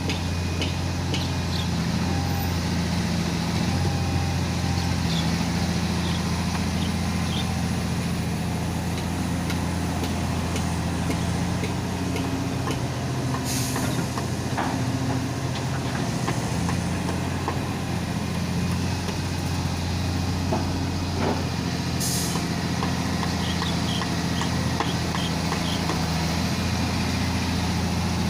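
Komatsu hydraulic excavator's diesel engine running steadily while it loads soil into a dump truck, its pitch shifting slightly as the load changes, with faint scattered clinks. Two short sharp hisses of air, one about halfway through and one about three quarters in.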